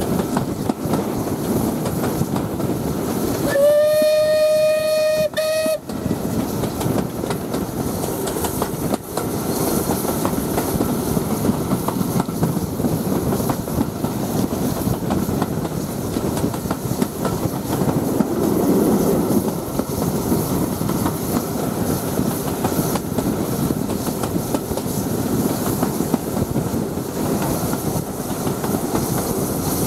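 Steam whistle of Bulleid West Country class locomotive 34028 Eddystone: one steady blast of about two seconds, some three seconds in. Under it runs the steady noise of the train running, with wheels clicking over the rail joints, heard from the carriage just behind the engine.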